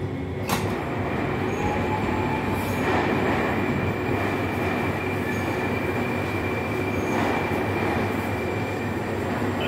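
Moscow metro Moskva-2020 train running, heard from inside the car: steady wheel-on-rail and running noise with a thin, steady high whine, and a single sharp knock about half a second in.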